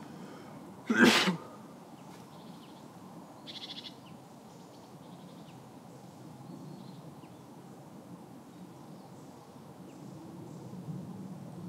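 Open-air ambience: a steady low rumble of background noise with a few faint bird calls, including a short rattling call a few seconds in. About a second in comes one short, loud, noisy burst, the loudest sound here, of unclear source.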